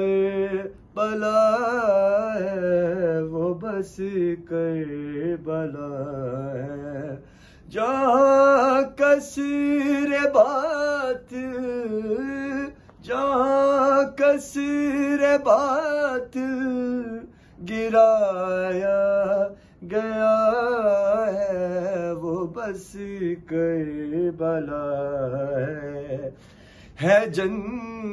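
A man's unaccompanied melodic recitation, a solo voice chanting from a book in long, drawn-out phrases with short pauses between them.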